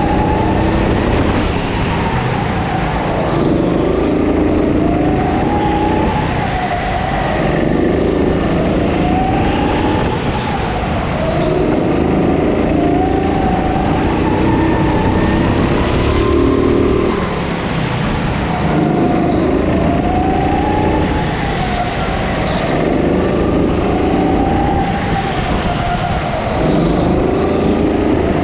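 Go-kart motor heard from the driver's seat, its pitch climbing and dropping again about every three to four seconds as the kart accelerates along the straights and slows for the corners of the track.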